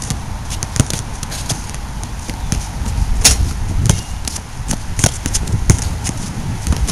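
A basketball bouncing on an outdoor hard court: a series of irregular sharp thuds over a steady low rumble.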